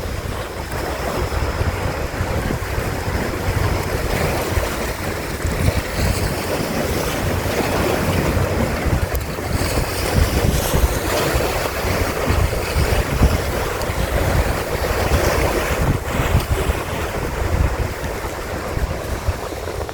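Lake Michigan waves breaking and washing steadily, with gusty wind buffeting the microphone.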